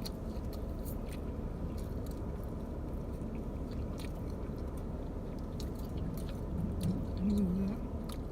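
Close-miked chewing of a slice of Little Caesars cheese pizza, with scattered small wet mouth clicks and smacks.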